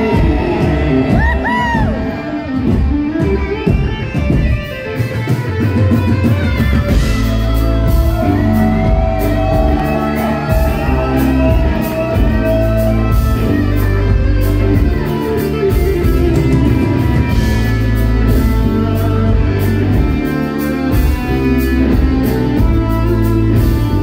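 Live band playing an instrumental passage on electric guitar, bass guitar and drum kit. About five seconds in it settles into a steady, held bass groove.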